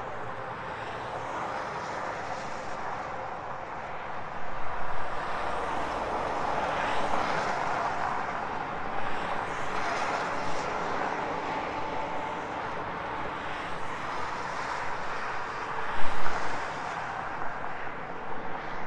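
Highway traffic passing at night: a steady rush of tyres and engines on the road that swells and fades as cars and a box truck go by. A couple of brief, sharp louder knocks come near the end.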